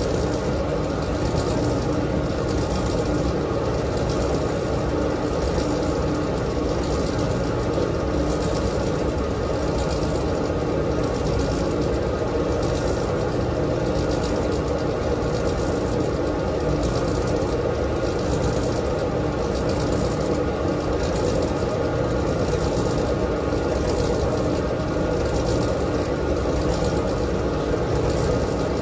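Dexter T900 commercial front-loading washer spinning its drum fast, a steady mechanical drone.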